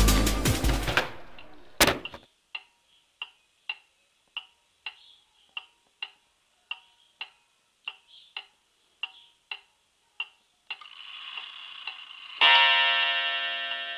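Wall clock ticking steadily, nearly two ticks a second. Near the end a short whirr runs up, then the clock strikes a ringing note that slowly dies away.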